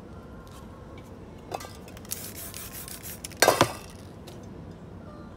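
Metal palette knife scraping across a painted canvas: a click, then a run of quick scrapes, ending in one loud rasp about three and a half seconds in.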